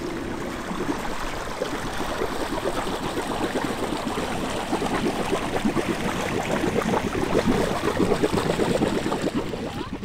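River water splashing and gurgling along a boat's hull in a steady, crackly wash.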